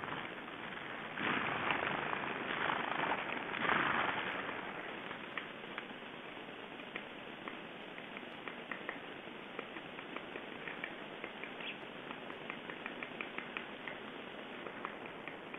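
Outdoor ambience: a few seconds of rushing noise about a second in, then a long run of faint, short, high ticks and chirps.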